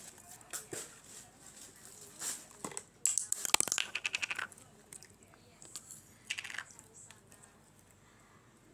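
Crisp, pencil-thin fried potato sticks being bitten and chewed, with scattered crunches and a dense run of rapid crunching about three seconds in.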